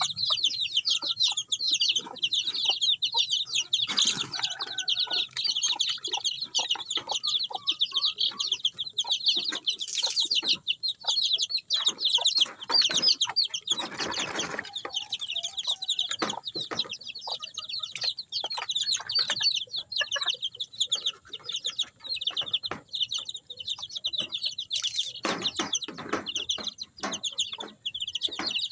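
Many young crossbred chicks peeping rapidly and without a break, a dense high chorus of short falling peeps. Scattered knocks and a few brief noisy bursts sound through it.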